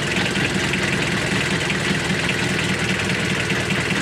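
Sailboat's inboard marine diesel engine idling steadily with the engine compartment open. It is running with no raw cooling water coming out of the exhaust; the crew later blame air getting into the cooling system through a bad raw-water strainer seal.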